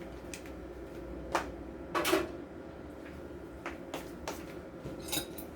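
A few light, irregular clicks and knocks of kitchen utensils and containers being handled, over a faint steady hum.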